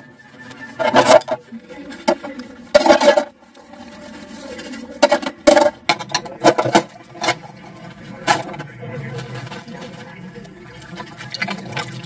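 Stainless steel dishes, pots and lids clanking against each other and the metal sink while being scrubbed with a brush. About seven sharp metallic clanks with a ringing tail come at irregular intervals, most of them in the first two-thirds, with quieter scrubbing and rattling between them.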